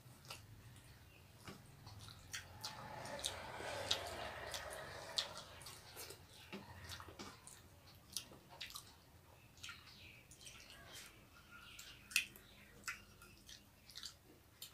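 Faint eating sounds of people having rice and fish curry with their hands: chewing, lip smacks and scattered wet clicks, with fingers mixing rice on steel plates.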